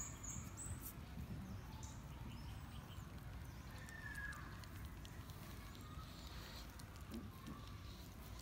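Faint sounds of puppies wrestling on paving: scattered small scratches and clicks over a steady low rumble, with a brief faint high chirp about four seconds in.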